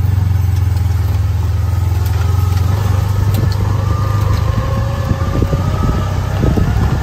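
Skid steer's diesel engine running with a steady low drone and a faint whine that rises slowly in pitch, turning rougher and rattly near the end.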